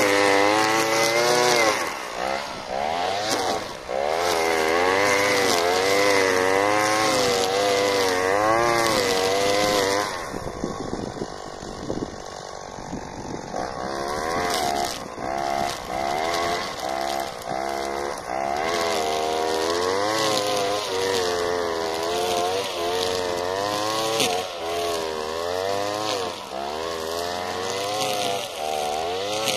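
Alpina Star 55DP two-stroke brushcutter running hard, its engine pitch rising and falling again and again as the cutting head bites into dry weeds and dirt. About ten seconds in it drops to a quieter, lighter run for a few seconds, then the rising and falling under cutting load resumes.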